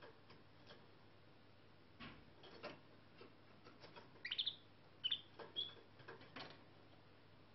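Young canary giving a few short, high chirps a little past the middle, among faint taps and clicks.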